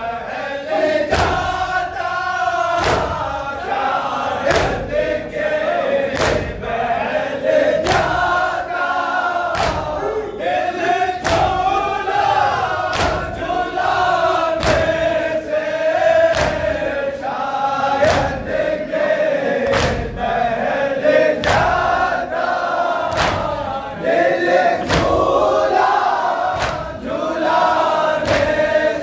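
Crowd of men chanting a nauha, a Shia lament, in chorus behind a lead reciter, with the mourners beating their chests in matam: loud slaps together about once a second, keeping the beat of the chant.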